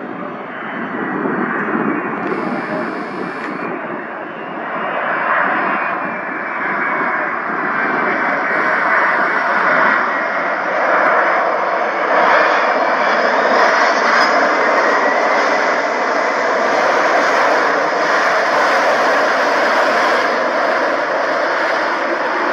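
A Boeing 767-200 airliner's twin jet engines during the landing rollout just after touchdown. The engine noise grows over the first several seconds, as reverse thrust is applied to slow the jet, then holds loud and steady as it decelerates on the runway.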